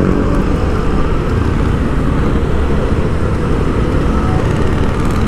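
Steady vehicle engine and road traffic noise, dense and low, with a constant low hum.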